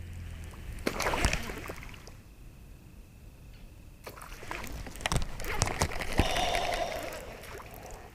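A bass striking a topwater plopper lure twice: splashes at the water's surface, a short one about a second in and a longer, rougher one from about four seconds in. Both are missed bites.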